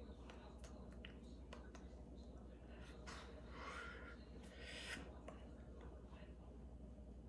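Near-silent room with a steady low hum, faint scattered clicks and two short rushes of noise about a second apart in the middle, from a person's hands and breath while signing in sign language.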